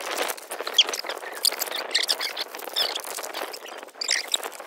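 Plastic and foil packaging of self-heating meal pouches crinkling and rustling as hands handle it, a dense run of irregular crackles.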